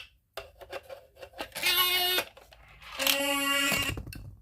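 Shape-sorter toy: a few plastic clicks, then two short electronic sound effects, the second lower in pitch and a little longer, as shapes are pushed into it.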